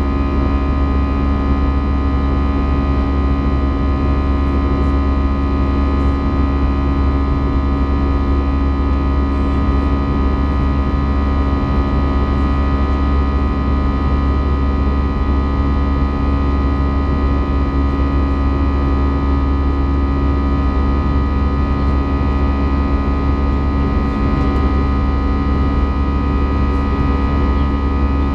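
Steady drone inside the cabin of an Airbus A320: jet engine and air noise with a deep rumble and several fixed humming tones, unchanging throughout.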